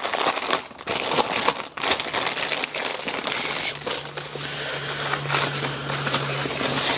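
Plastic bag and paper wrapping crinkling and rustling as a piston is unwrapped by hand. A low steady hum comes in about four seconds in.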